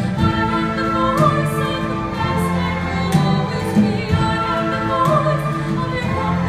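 A woman singing with a string orchestra of violins accompanying her, in long held notes with vibrato.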